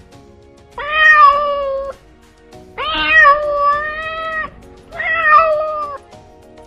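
Domestic cat meowing three times, each a long drawn-out meow, the middle one the longest.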